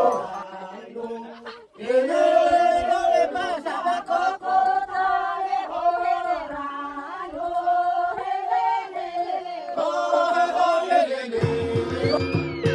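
A group of voices singing together in a drawn-out chant, with no instruments. Near the end it changes abruptly to music with a guitar.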